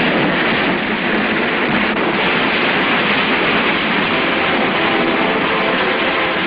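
A torrent of water bursting through a door and flooding a room, heard as a loud, steady rushing wash.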